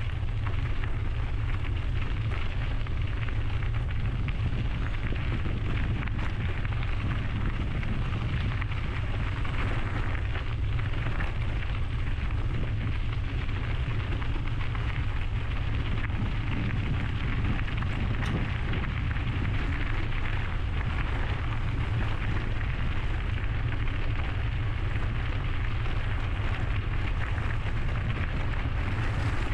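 Steady wind rumble buffeting a GoPro camera's microphone while riding a bicycle, with an even rushing noise from the ride over it.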